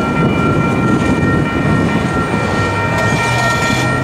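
Freight train cars rolling over the rails, the steady rumble of the tail end of an intermodal train, with steady high ringing tones held over it.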